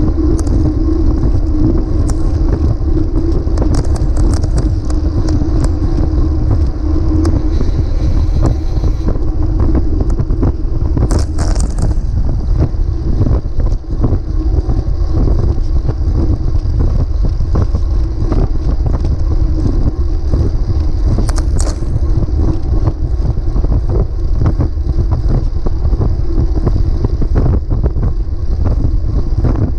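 Wind buffeting the microphone of a bike-mounted camera on a moving road bike, with steady tyre and road noise and scattered clicks and rattles from bumps in the road.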